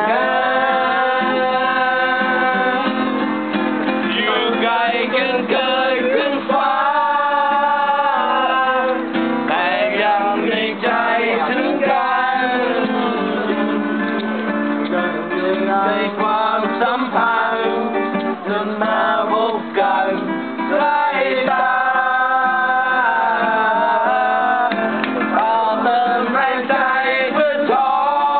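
Acoustic guitar strummed steadily while men sing a song along with it.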